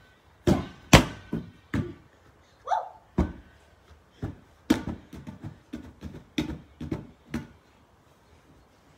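Irregular thumps of a large clear inflatable ball being kicked and bouncing, about a dozen knocks that stop after about seven and a half seconds.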